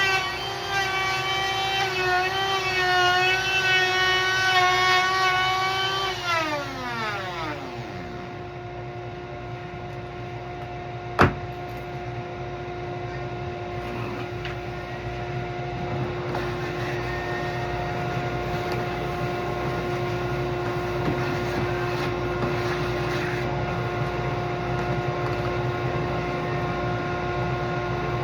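A small motor running with a wavering pitch, then winding down about six seconds in. A steady hum stays behind it, and there is a single sharp click near the middle.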